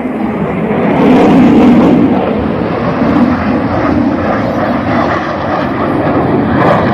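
Loud jet-engine noise from a tight formation of four military jets flying past, building over the first second or two and holding strong.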